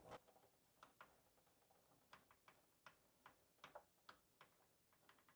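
Near silence with faint, scattered small clicks from a hand screwdriver tightening a screw in the plastic cover of an exercise bike.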